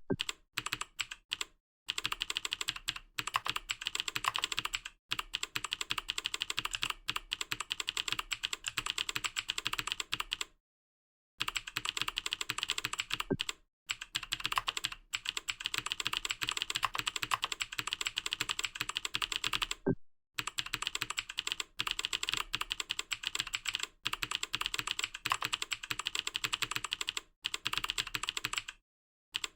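Fast typing on a computer keyboard: a rapid, continuous run of keystroke clicks, broken by a few short pauses.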